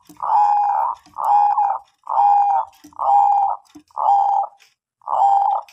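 Zebra dove (Bangkok-type perkutut) cooing: six rolling coos in a steady series, each about half a second long and about a second apart, some led by a short low note.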